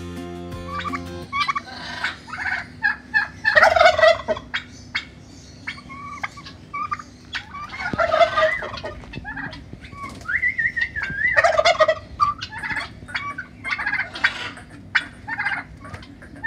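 Domestic turkey toms gobbling: three loud gobbles spaced about four seconds apart, with many shorter chirping calls between them.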